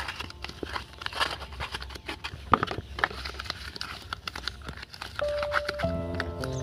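Hands rubbing butter into thin plastic food boxes and handling them: scattered light clicks, rubs and crinkles of plastic. Background music comes in near the end.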